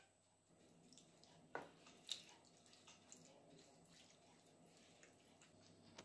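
Faint sounds of a wooden spoon spreading wet minced-meat sauce in a glass baking dish, with light clicks about one and a half and two seconds in.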